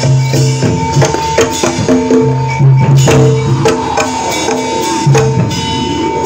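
Javanese gamelan music accompanying a barongan dance: sharp kendang hand-drum strokes over repeated pitched metallophone notes and low held tones, with one high tone sustained throughout.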